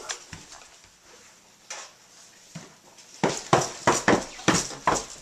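Footsteps going quickly down wooden stairs, about three steps a second, starting about three seconds in after a few faint knocks.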